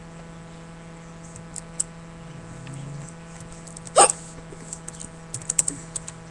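A girl hiccups once, sharply, about four seconds in, over a steady background hum. A few light clicks follow.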